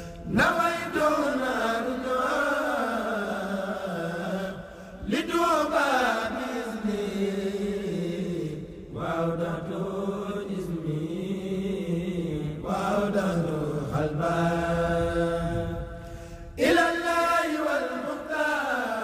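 Khassida chanting: a Mouride devotional Arabic poem sung in long, drawn-out phrases. A new phrase starts about every four seconds, each beginning high and gliding down in pitch.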